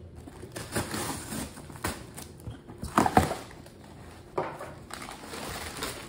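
Cardboard box being opened by hand, its flaps and newspaper packing handled, with irregular scrapes and crinkles. The loudest comes about three seconds in.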